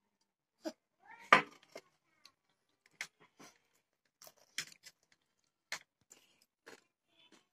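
A metal spoon clinking and scraping in a small steel bowl: irregular short clicks, with one louder knock about a second in.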